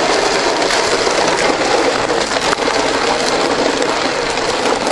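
Steady, dense hubbub of a road-race field and crowd: many runners' feet and voices blended into one continuous noise.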